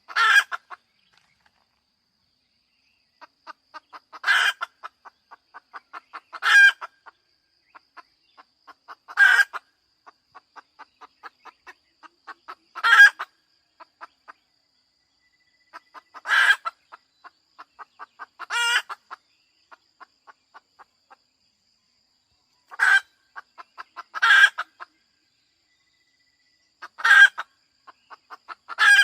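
Hen cackling: runs of soft, quick clucks that build into a loud squawk, over and over, about every two to four seconds.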